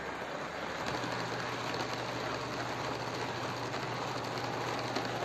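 OO gauge model high-speed train running along the track: a steady noise of its wheels on the rails, with a low motor hum coming in about a second in.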